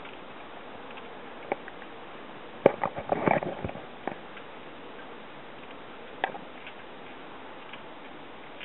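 Bicycle and handheld camera jolting during a ride: a steady hiss broken by irregular sharp clicks and rattles, with a loud clattering burst about three seconds in and a single click about six seconds in.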